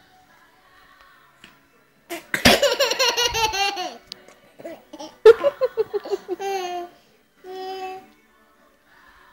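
Baby laughing in bursts of rapid giggles: one run starting about two seconds in, another about five seconds in, then a shorter held vocal sound near the end.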